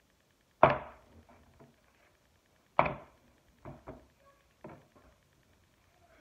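Thumps from handling a clay slab: two loud ones about two seconds apart, then four lighter knocks.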